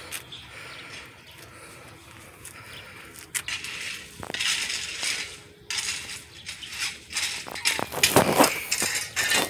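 Rustling and scraping handling noise with a few light knocks, coming and going irregularly and loudest near the end.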